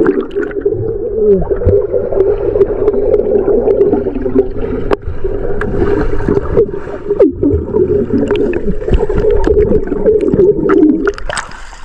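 Swimming pool heard with the microphone underwater: a muffled steady hum with bubbling and many short knocks and splashes from people moving in the water. The hum cuts off shortly before the end, and ordinary open-air sound comes back.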